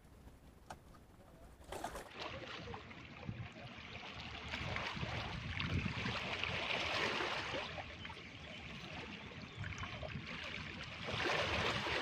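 A few faint ticks, then from about two seconds in a steady hiss of seawater washing and splashing against the rocks of a seawall, swelling in the middle.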